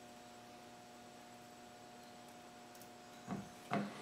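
Faint steady electrical hum, then two short noises a little after three seconds in as a hand syringe fluid extractor draws coolant out of the expansion tank.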